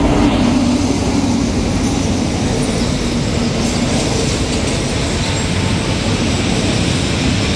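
Diesel-electric locomotive passing close by at the head of a passenger train. Its engine drone fades after the first second or two, and the passenger coaches follow, rolling past with steady wheel-on-rail noise.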